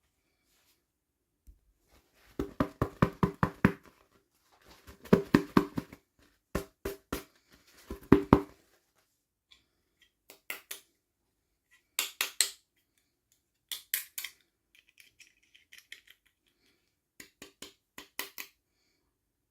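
Small hard plastic toy packaging being handled and opened by hand, giving bursts of rapid clicks and taps of several a second, in short groups with pauses between them.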